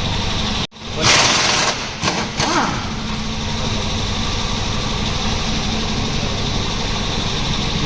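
A steady machine hum, with a sudden loud hiss about a second in lasting most of a second, then two shorter bursts: a pneumatic impact wrench working the bolts of a front lower suspension arm.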